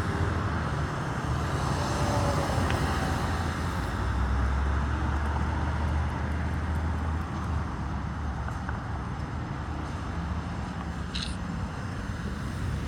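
Road traffic noise: a steady low rumble of passing vehicles, easing a little in the second half.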